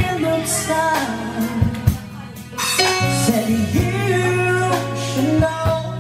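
Live band playing a soft-rock ballad on drums, keyboard and bass, with a man singing the melody into a microphone; the music briefly drops in level about two seconds in.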